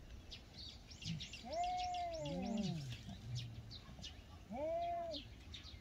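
Two feral cats in a standoff giving drawn-out yowls that rise and fall in pitch: one about one and a half seconds in, overlapped by a lower second voice, and another near the end. These are the warning calls of cats squaring off over food. Birds chirp throughout in the background.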